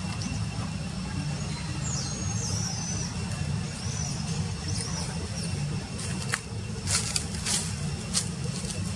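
Outdoor ambience: a steady low rumble with a few short high chirps about two to three seconds in, and several sharp clicks or rustles near the end.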